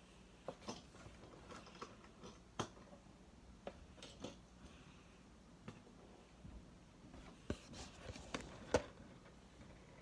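Small plastic toy robot figures clicking and tapping as they are handled and set down on a wooden tabletop: a dozen or so short, sharp, scattered taps, the loudest near the end.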